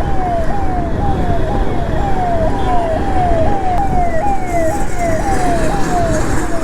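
Emergency vehicle siren in a fast repeating cycle, each a quick rise and slower fall in pitch, about two a second, over steady road and wind noise.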